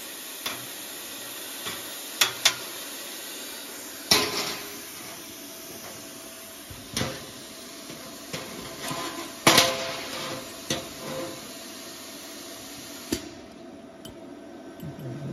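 Sharp metallic clanks and taps of plasma-cut metal flange pieces and steel pliers against a steel workbench, several ringing briefly. They sound over a steady hiss that stops about two seconds before the end.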